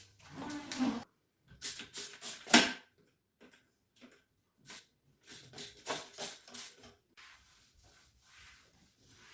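Household objects being handled and set down: irregular rubbing and clicking, with a sharp knock about two and a half seconds in.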